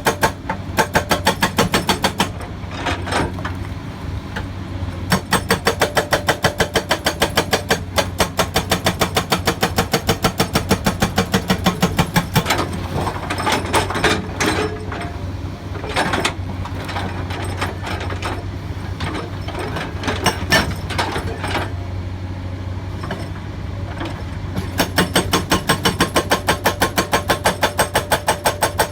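Hydraulic rock breaker hammer on a Komatsu excavator pounding rock in rapid, evenly spaced blows, over the excavator's steady engine hum. The hammering comes in runs: at the start, again from about five to twelve seconds in, and again near the end. In between, the engine runs on with scattered knocks.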